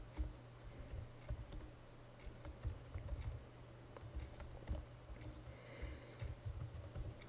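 Typing on a computer keyboard: irregular key clicks and thumps in quick clusters with short pauses.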